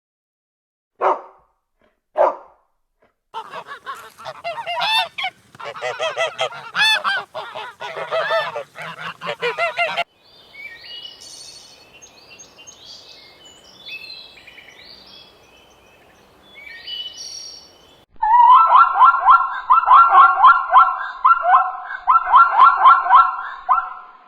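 A run of different animal calls: two short barks, then several seconds of loud honking calls, a stretch of faint high bird chirps, and a final run of rapid, loud, repeated honking calls.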